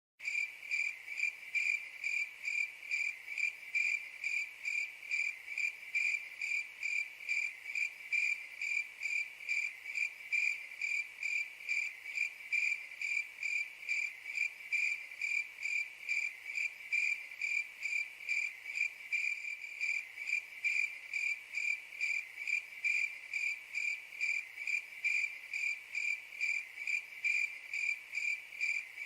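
A cricket chirping steadily at one high pitch, in an even rhythm of about three chirps a second.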